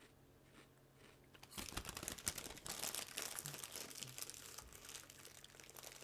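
Plastic snack bag crinkling as it is handled, a dense irregular crackle that starts about a second and a half in.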